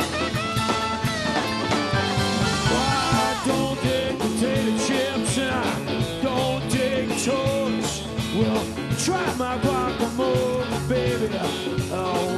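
Live rock band playing an instrumental passage: electric guitars with bending lead lines over a drum kit, with steady cymbal hits, and keyboards.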